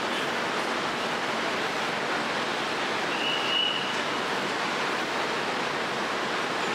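Steady street noise of traffic and people, an even rushing hiss, with one short high tone lasting about a second a little past the middle.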